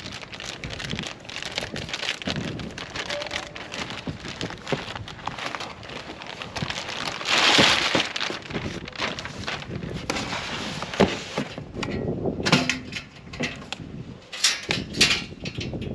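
Crackling and rustling of packaging, with irregular clicks and light knocks as tailgate table parts are handled, and a louder rustle about halfway through.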